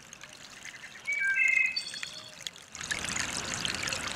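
A few short, high, steady peeps about a second in, then, from near three seconds, the steady trickle of running water.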